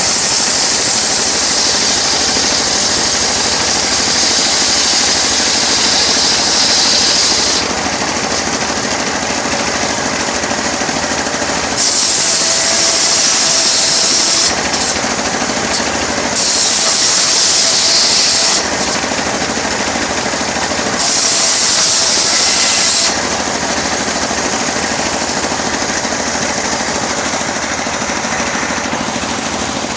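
Homemade engine-driven sawmill running hard while cutting teak. The saw runs steadily throughout, and four times, starting right away, about 12 s in, about 16 s in and about 21 s in, a louder hissing rasp of blade through wood rises over it for two to seven seconds.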